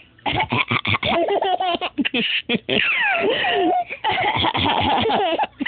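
Baby laughing hard in rapid runs of short giggles and squealing belly laughs, the pitch swooping up and down.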